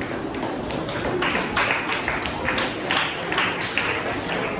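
A steady run of claps or taps, about two or three a second, starting about a second in, over room noise.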